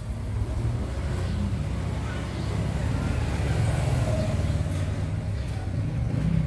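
A steady low rumble, louder than the surroundings.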